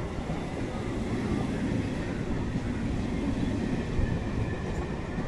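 Suburban EMU train rolling slowly along a station platform: a steady rumble of wheels on the rails, with no distinct clicks or tones.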